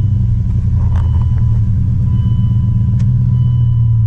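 A 1999 Dodge pickup truck's engine idling steadily just after being started.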